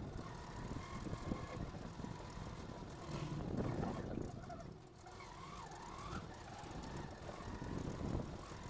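Street traffic and a running vehicle, with a faint steady tone and a short wavering tone partway through.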